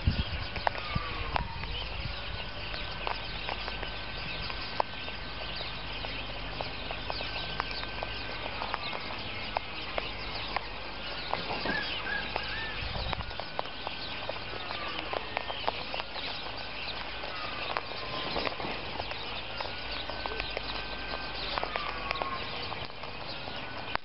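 Sulphur-crested cockatoos foraging on birdseed close to the microphone: irregular sharp clicks and taps of beaks picking and cracking seed and feet on the scattered grain. Long whistled bird calls sound in the background over a low wind rumble.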